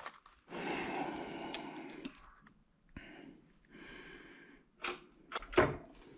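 A person's long breath out, then two shorter, fainter breaths. Near the end come a few sharp metal clicks and knocks as the electric-motor rotor is fitted onto the ram of a hydraulic press.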